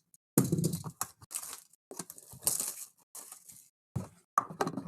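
Shrink wrap and cardboard of a sealed trading card box being torn open and handled: irregular tearing, crinkling and crackling, with a few dull handling knocks.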